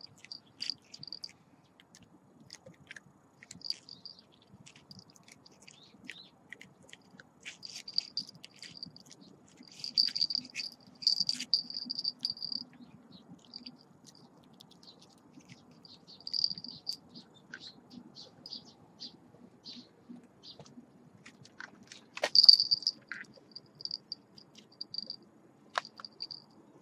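Cricket chirping in short, irregular trains at one high pitch, with scattered faint clicks; the loudest burst comes about three quarters of the way through.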